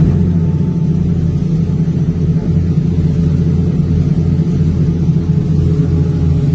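A vessel's engines running with a steady low drone.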